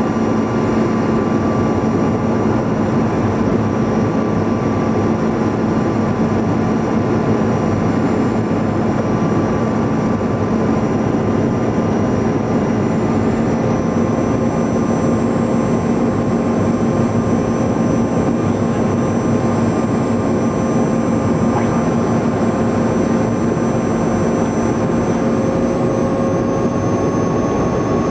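Cabin noise inside a Bombardier CRJ-200 regional jet on approach: a steady rush of airflow with the drone of its rear-mounted General Electric CF34 turbofans, a low hum and fainter high whining tones over it. A further mid-pitched tone comes in about halfway through and holds steady.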